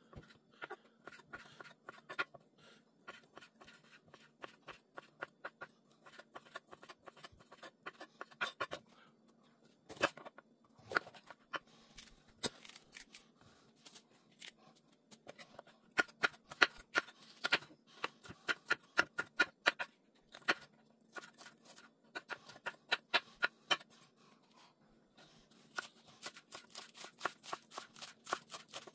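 Chef's knife cutting on a wooden cutting board: repeated sharp taps as the blade cuts through ham, then slices green bell pepper, and near the end chops green onions in quick, even strokes.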